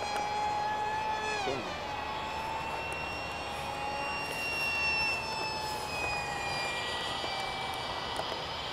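Alpha MiG-15 RC jet's electric ducted fan, on its stock 4900 kv motor, whining in flight. The pitch drops sharply about a second and a half in, then holds fairly steady with slow drifts up and down.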